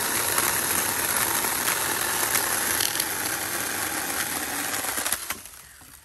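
Battery-powered Ryobi 18V ONE+ 8-inch pruning chainsaw running under load, its chain cutting through a dead branch. About five seconds in, the trigger is released as the cut finishes and the motor spins down.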